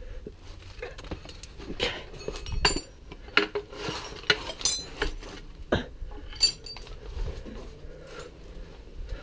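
Metal hand tools, spanners and sockets, clinking and knocking against each other as they are handled. There are several irregular sharp clinks that ring briefly, mostly in the middle.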